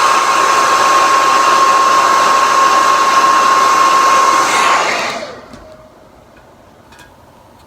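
Hair dryer running with a steady rushing blow and a high whine, switched off about five seconds in, its whine falling away as it winds down. A few faint clicks follow.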